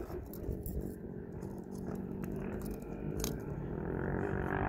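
A few faint clicks and light scrapes of a small metal toothed washer being handled and slipped onto a brass screw, over a steady low background rumble.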